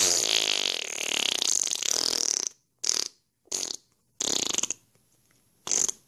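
Fart noises: one long raspy one lasting about two and a half seconds, then four short ones.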